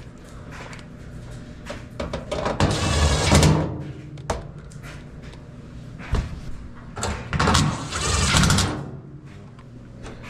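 Clicks and knocks of work on a Kenmore 90 Series dryer's sheet-metal cabinet as its screws are put back in, with two grinding bursts of about a second each: one about three seconds in and one about eight seconds in.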